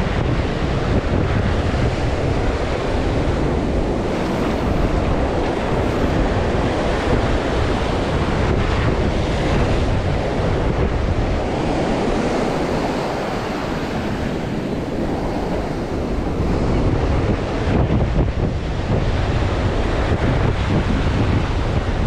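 Ocean surf washing onto a sandy beach, with wind buffeting the microphone in a steady, gusting rumble.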